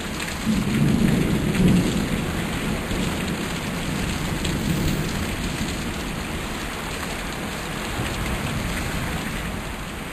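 Heavy thunderstorm downpour: a dense, steady hiss of rain, with a low rumble of thunder in the first few seconds that then eases off.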